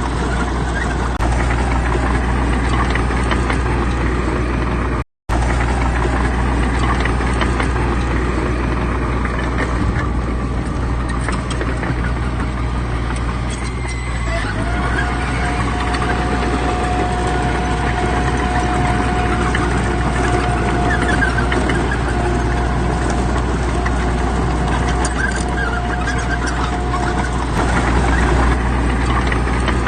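Heavy earthmoving machine's diesel engine running steadily, with a sharp gap of silence about five seconds in. A steady thin whine sits over the engine from about halfway through until near the end.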